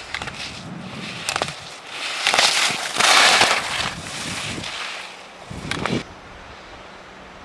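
Skis scraping and carving on hard snow through slalom gates, with wind on the microphone. A few sharp clacks come in the first seconds, and a loud rushing stretch sits in the middle. A last surge just before six seconds in cuts off suddenly to a steadier, quieter hiss.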